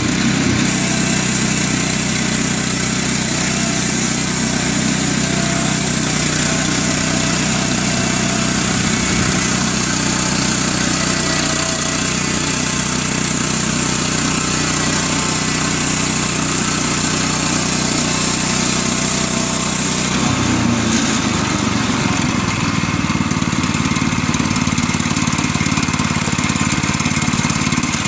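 The engine of a Woodland Mills HM122 portable band sawmill running steadily under load while the band blade cuts lengthwise through a log, with a steady high-pitched hiss from the blade. About two-thirds of the way through, the hiss stops and the engine note changes as the blade clears the end of the log.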